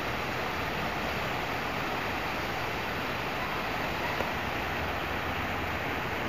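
Rain falling steadily, an even hiss, with a low rumble of traffic on the wet streets below.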